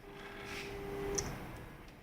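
Silhouette Cameo 3 cutting machine's feed motor running as the down-arrow button drives the cutting mat in under the rollers: a steady low whine for a little over a second that stops with a click, then another faint click near the end.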